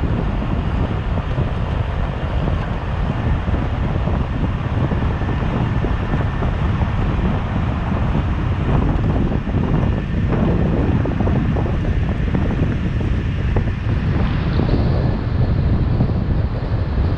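Steady wind buffeting the microphone of a camera on a moving car, over the low rumble of road and tyre noise.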